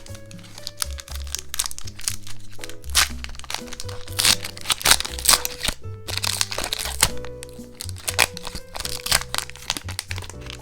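Foil booster pack wrappers crinkling and crackling as they are handled and torn open, loudest a few seconds in, over background music.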